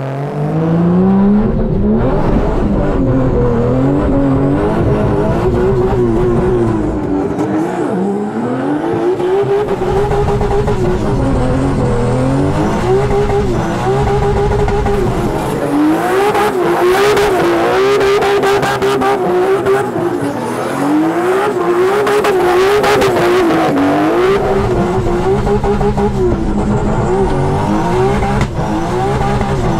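Nissan R32 GT-R's built, turbocharged RB32 straight-six running hard, its revs climbing, holding and dropping again and again as the throttle is worked. A harsher, noisier stretch sits through the middle few seconds.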